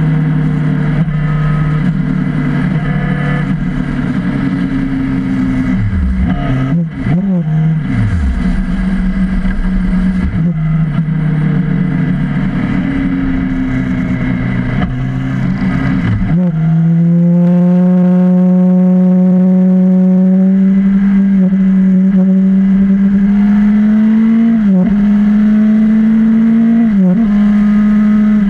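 Motorcycle engine running at freeway speed, heard close up from the riding bike, a steady engine note with a rushing noise under it. Its pitch dips and swoops several times in the first half, drops sharply and then settles at a higher, steadier pitch a little past halfway, climbing slowly, with two brief dips near the end.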